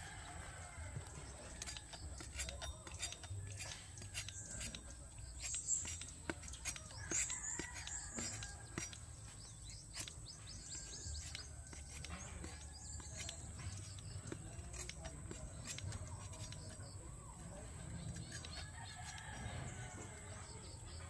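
Bolo knife blade knocking and scraping on a split young coconut, a scattered series of sharp clicks, while a rooster crows in the background.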